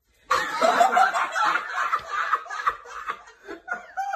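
People laughing out loud. The laughter breaks out about a third of a second in and gradually dies down in shorter bouts.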